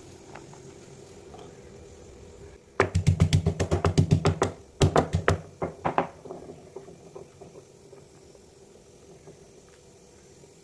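A fast, even run of hard knocks, about seven a second, starting about three seconds in, a brief pause, another quick run, then a few slower, weaker knocks trailing off, over a low steady hum.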